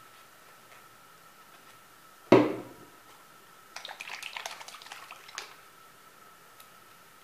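A sharp knock about two seconds in, then about a second and a half of light clattering and rattling of small objects being handled, over a faint steady high hum.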